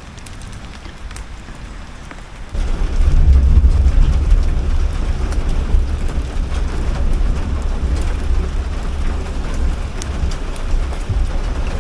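Heavy rain beating on the metal body of an armoured vehicle, heard from inside. About two and a half seconds in it suddenly grows much louder, with a deep rumble underneath.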